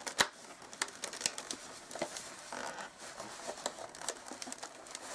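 Latex 260 modelling balloons creaking and rubbing as gloved hands press and straighten a finished balloon sculpture: a scatter of small irregular creaks and clicks, the sharpest shortly after the start.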